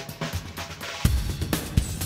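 Background music with a steady drum beat; about a second in a fuller, louder section with heavy bass drum comes in.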